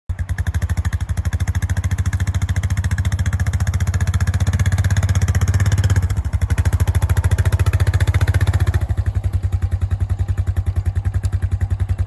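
Honda Foreman ATV's single-cylinder engine running at low revs while towing a wood chipper, with an even, fast beat of about ten pulses a second. It eases off slightly about halfway through.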